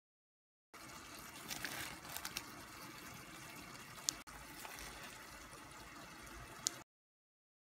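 Broth boiling in a stainless-steel pot, giving a steady faint bubbling that starts about a second in and cuts off abruptly shortly before the end. A few sharp clicks stand out: a cluster early on, one near the middle and one near the end.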